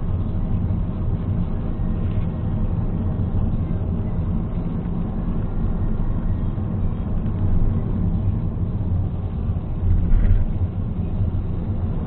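Car engine and road noise heard from inside the cabin while driving, a steady low drone with a brief louder swell about ten seconds in.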